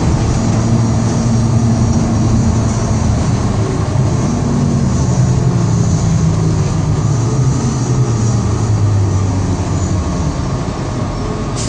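City bus engine and drivetrain running while the bus drives, heard from inside the passenger cabin. It is a steady low hum whose pitch shifts up and down a few times as the bus changes speed.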